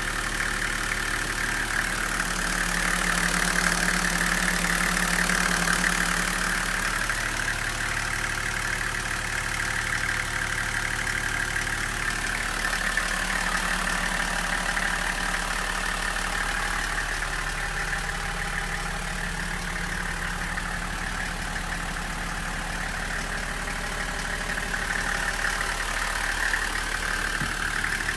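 Toyota Coaster's 1HZ 4.2-litre straight-six diesel idling steadily, heard from inside the cabin with the engine hatch open.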